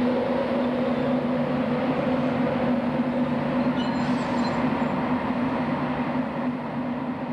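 British Rail Class 91 electric locomotive standing with its pantograph raised, its on-board equipment giving a steady hum with a low drone and a higher held tone.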